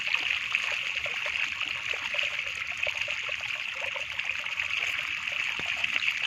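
Shallow water running steadily down a muddy channel, with many small fish wriggling and splashing in the flow and giving a constant fine crackle of little splashes.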